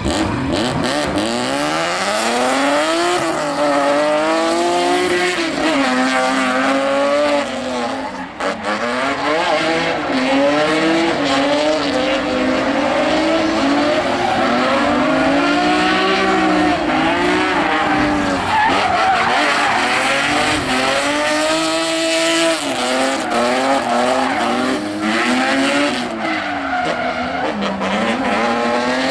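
Two BMW drift cars running in tandem, their engines revving hard up and down as the throttle is worked, with tyres squealing and scrubbing sideways. The engine note dips briefly about eight seconds in.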